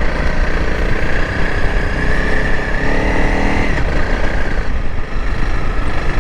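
Honda CRF300L Rally's single-cylinder engine running while the motorcycle is ridden through soft sand, its note shifting briefly about three seconds in.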